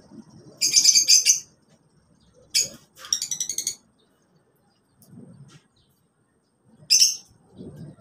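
Lovebirds giving rapid, high-pitched chattering calls in short bursts: a loud burst about a second long near the start, two more around the three-second mark, and a brief one near the end.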